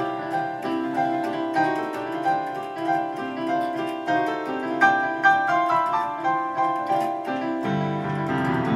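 Electronic keyboard played with a piano sound: a steady run of notes over chords, with lower bass notes coming in near the end.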